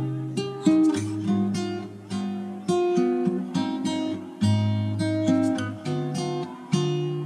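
Background music: plucked acoustic guitar playing a run of ringing, fading notes over sustained low bass notes.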